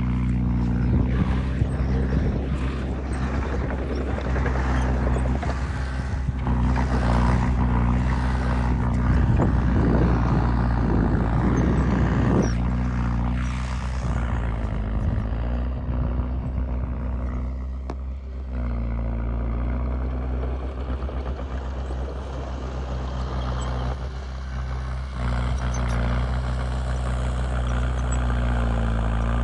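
Heavy diesel engine of earthmoving machinery running steadily, with a louder stretch of clattering and rumbling in the first half that eases off partway through.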